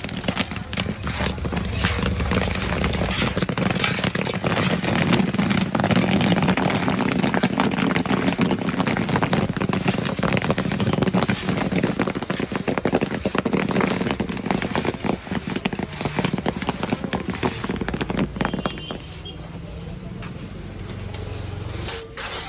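Popcorn kernels popping over a chula in a rapid, dense crackle of pops, which thin out and fall quieter about nineteen seconds in.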